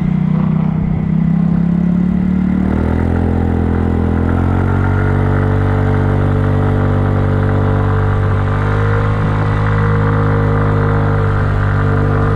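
Kymco People scooter's engine and exhaust while riding: the pitch climbs about three seconds in as it speeds up, then holds steady at cruising speed.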